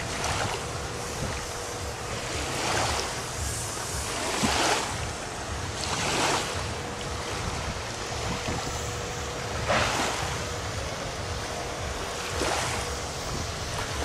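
Small sea waves lapping and washing onto the shore, a swish every couple of seconds, with wind rumbling on the microphone.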